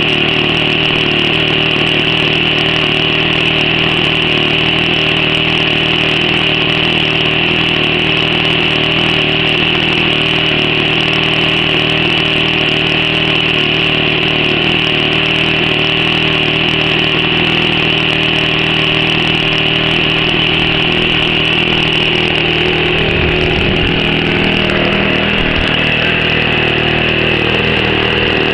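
OS 70 Surpass four-stroke glow engine on a radio-controlled P-51 model plane running at a steady speed on the ground, a loud, even drone that holds one pitch throughout.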